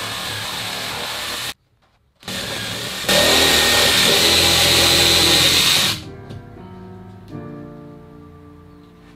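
A loud motor-driven tool running steadily, stopping for a moment about a second and a half in, then starting again louder and cutting off about six seconds in. Soft music with held notes follows.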